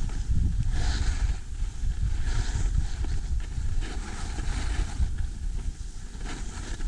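Wind buffeting the microphone of a camera skiing fast downhill, a steady low rumble, with a hiss of skis scraping over packed snow that rises and falls with each turn, about every one and a half seconds.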